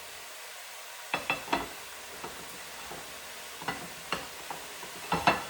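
Bok choy and shiitake mushrooms sizzling steadily as they stir-fry in a pan. Sharp clinks and knocks come in clusters: three about a second in, two around four seconds, and the loudest pair just before the end.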